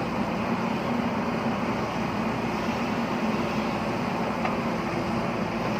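JCB backhoe loader's diesel engine running steadily under work, a constant low drone.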